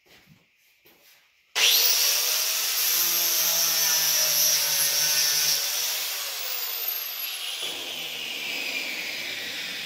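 Angle grinder switched on about a second and a half in, running loud with a high whine as it grinds into alligator juniper wood to shape a live edge. The whine falls in pitch during the second half.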